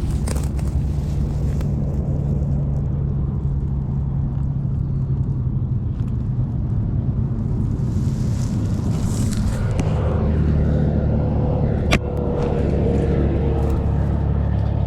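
Steady low engine drone. About ten seconds in, a higher tone joins it and slides slightly down. There is a single sharp click near the twelve-second mark.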